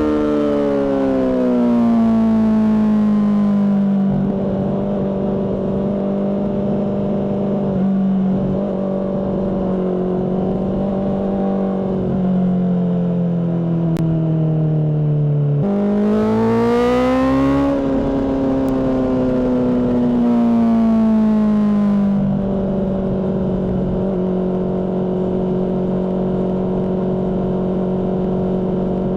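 Honda CBR600RR inline-four engine through a Mivv aftermarket exhaust, ridden on the road. The revs fall, hold steady for several seconds, dip again, then about sixteen seconds in jump up sharply and fall away before settling into a steady cruise.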